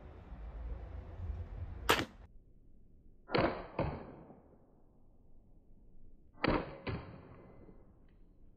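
Hand-built 15th-century style crossbow with a heavy 120–130 pound prod being shot. First one very sharp snap about two seconds in, then two more releases a few seconds apart, each heard as a pair of sharp knocks about half a second apart.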